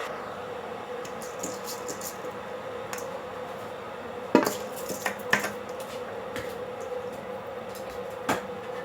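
Cookware knocking and clinking a few times: one sharp knock about four seconds in, two more about a second later, and another near the end, over a steady background hum.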